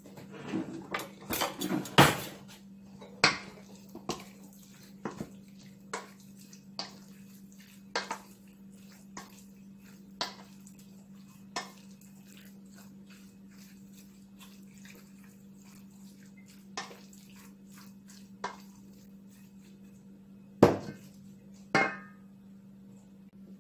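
A stainless steel mixing bowl holding raw chicken being handled and set down on a counter: scattered knocks and clinks, a loud cluster in the first two seconds and two loud ones near the end, over a faint steady hum.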